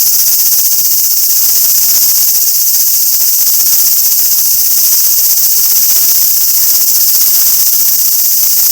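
Cicadas singing in chorus: a loud, steady, high sizzling hiss with no breaks.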